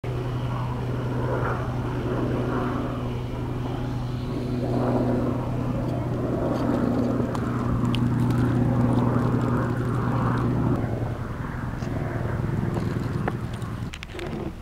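A steady low motor hum over wind noise, stopping about eleven seconds in, with a few knocks near the end.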